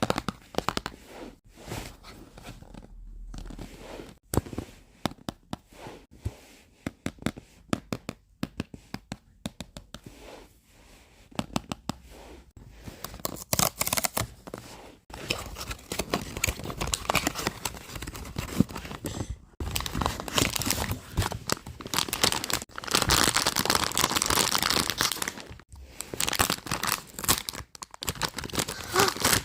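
Blind box packaging being handled and torn open, its wrapper crinkling: scattered clicks and rustles at first, then longer, louder stretches of tearing and crinkling in the second half.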